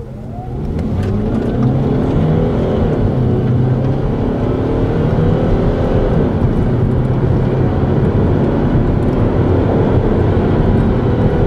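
A 2013 Hyundai Sonata Hybrid's 2.4-litre four-cylinder engine accelerating hard at full throttle, heard from inside the cabin. It grows louder over the first second or so, and its note climbs and then drops back at each upshift of the six-speed automatic.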